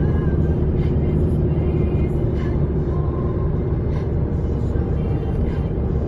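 Car driving at speed on a highway: steady low rumble of engine and tyre road noise.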